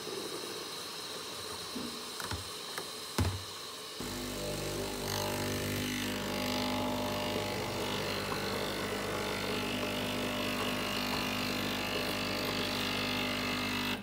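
Gastroback espresso machine's pump starts about four seconds in and runs as a steady buzzing hum with a hiss over it, cutting off suddenly at the end. Before it there is a fainter hiss and a single knock.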